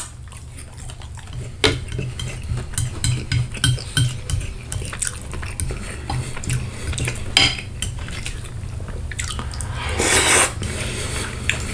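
Metal fork clinking and scraping on a ceramic plate while spaghetti in tomato sauce is twirled and lifted, with small wet sounds of the sauced noodles. About ten seconds in, a short slurp as a strand of spaghetti is sucked into the mouth.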